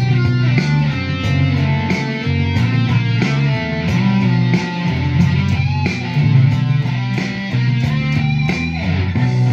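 Les Paul-style electric guitar playing a rock riff of changing notes over a steady beat.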